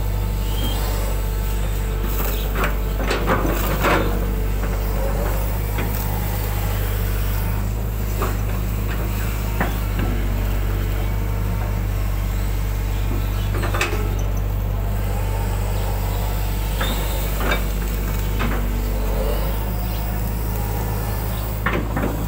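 Hydraulic excavator's diesel engine running steadily under working load as it digs mud out of a ditch, with occasional short knocks and clanks from the bucket and arm, a cluster of them about three to four seconds in.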